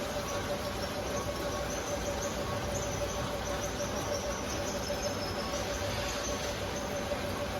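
Steady running hum of a commercial heat pump's air handler with its fan on, holding a constant mid-pitched tone, with faint high-pitched chirping repeating through it.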